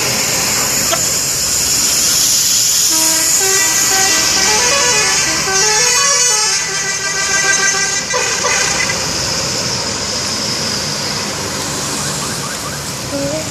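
Bus telolet horn, the multi-tone musical air horn of Indonesian coaches, playing a quick stepped tune of several notes up and down for about five seconds, starting a few seconds in, over steady vehicle and traffic noise.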